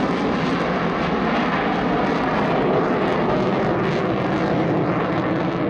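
Dassault Rafale fighter jet's twin Snecma M88 turbofans in afterburner, heard as a loud, steady jet noise as it climbs away.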